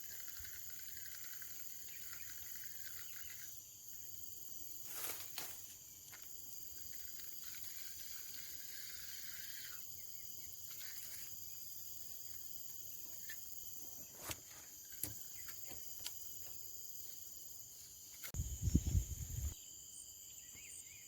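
Steady high-pitched chirring of insects at a lakeside, with a few light clicks and a short low rumble, the loudest sound, about three-quarters of the way through.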